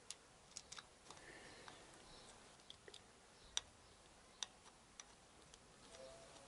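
Small metal clicks and taps as a clutch bracket and its bolt are handled and fitted by hand against a motorcycle engine casing. The clicks are faint and scattered, with two sharper ones a little past the middle.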